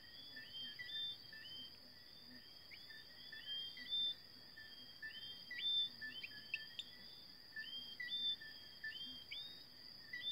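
Night chorus: a steady high insect trill with many short whistled calls over it, each a short note that sweeps sharply upward, about two a second and overlapping. No rooster crows.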